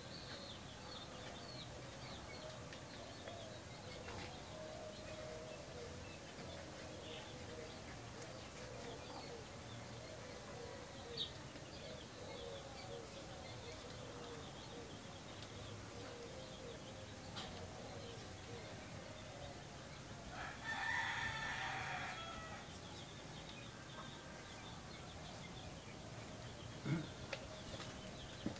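A rooster crows once, about two seconds long, roughly three-quarters of the way through, over faint bird chirping and a steady high hiss. A short knock comes near the end.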